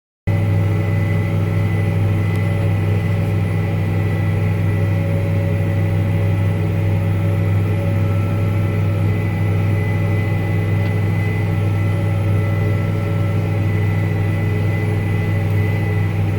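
Farm tractor engine running steadily under load while pulling a land planer, a constant low hum that cuts in about a third of a second in and does not change.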